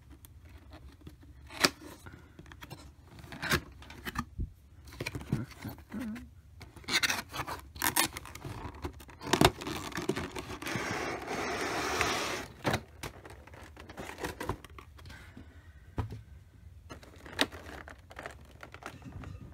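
Hands opening a cardboard figure box and handling the clear plastic packaging inside: scattered taps, scrapes and rustles, with a denser stretch of rustling about ten seconds in that lasts some two seconds.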